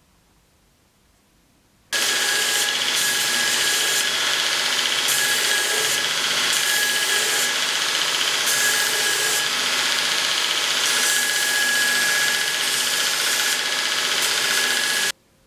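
A power tool running steadily for about thirteen seconds, with a faint high whine in the noise. It starts suddenly about two seconds in and stops suddenly near the end.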